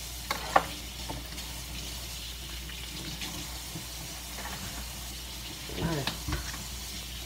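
Baby Virginia opossum chewing a slice of fruit: wet, crackly smacking and clicking, with one sharp click about half a second in. A short burst of a voice near the end.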